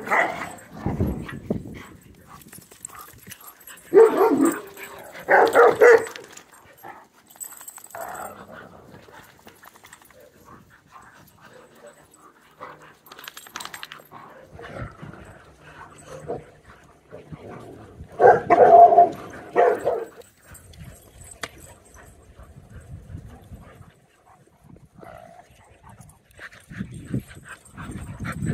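Several dogs barking in short bouts, loudest about four to six seconds in and again around eighteen to twenty seconds in, with quieter scuffling and odd yips between.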